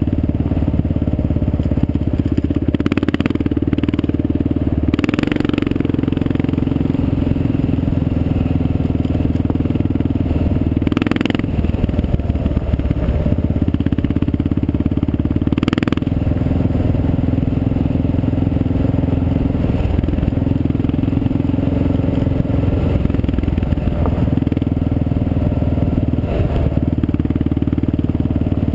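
Motorcycle engine running steadily under way on a gravel road, with a few short clattering knocks over the top. The engine note dips and changes briefly about eleven seconds in.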